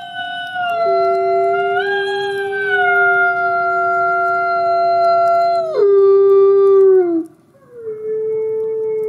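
Gray wolves howling together: a long, steady higher howl overlaps a lower one that joins about a second in. Both end about seven seconds in, the lower one sliding down, and after a brief pause a low, steady howl starts again.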